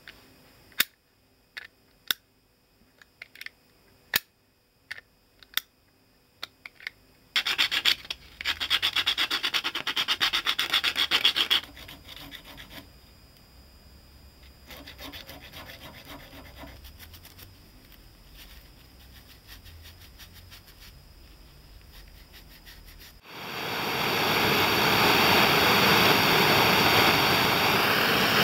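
Sharp single clicks of the Hahn .45 revolver's action as the hammer is worked, about eight over the first several seconds. Then a hand file rasps on a small steel part clamped in a vise, in quick strokes, with a quieter bout of filing a few seconds later. Near the end a loud steady rushing noise starts suddenly.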